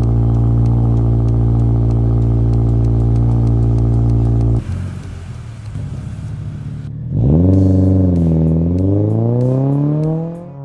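Toyota GR86's 2.4-litre FA24 flat-four running through an MBRP Armor Pro Series cat-back exhaust. It holds a steady pitch for the first few seconds; after a cut it is quieter, then the revs climb, dip briefly and climb again near the end.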